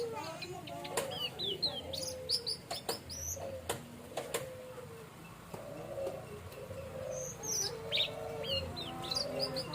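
Orange-headed thrush (anis merah) singing: a run of short, quick chirps and whistles, most of them falling in pitch, with a few sharp clicks between about one and four and a half seconds in.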